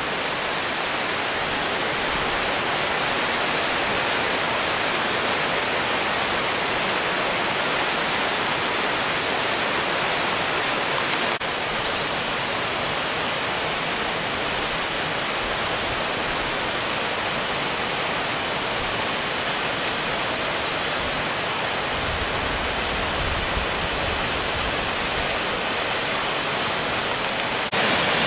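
Dolgoch Falls waterfall and the rocky stream below it rushing steadily: a dense, even hiss of falling water.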